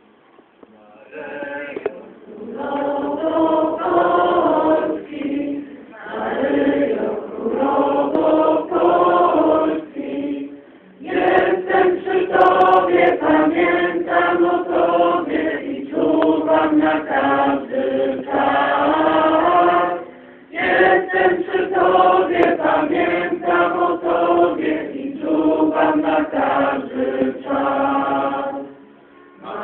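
A group of people singing a hymn together, in long phrases with short breaks about ten and twenty seconds in and again near the end.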